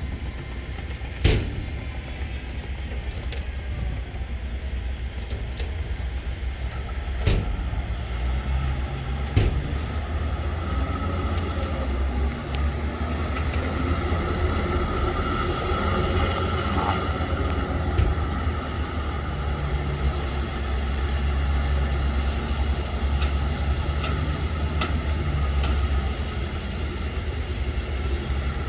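Heavy diesel earthmoving machinery running with a steady deep engine drone, with a few sharp metallic knocks in the first ten seconds.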